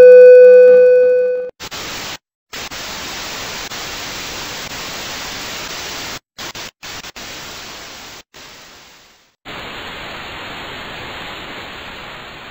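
A loud, steady beep tone for about a second and a half, then a hiss of TV-style white-noise static that cuts out briefly several times and carries on to the end.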